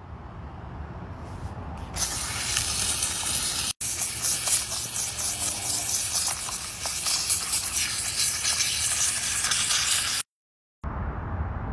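Steam cleaner jet hissing steadily as it blasts a plastic console tray. It starts about two seconds in and cuts off shortly before the end.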